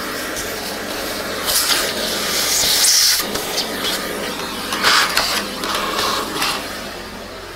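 Central vacuum hose sucking hair and dust out of an old vacuum cleaner's motor housing: a steady rushing hiss of air through the wand. It swells and dips as the nozzle moves, then eases off near the end.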